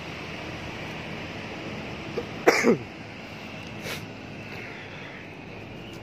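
A person coughs once, loudly and briefly, about two and a half seconds in, its pitch dropping fast, over a steady background hiss of wind and traffic.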